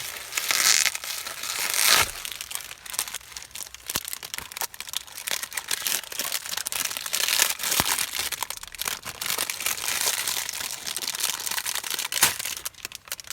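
Packaging crinkling, rustling and tearing as a boxed toy train is unwrapped by hand, with many small clicks and a few louder bursts early on, stopping just before the end.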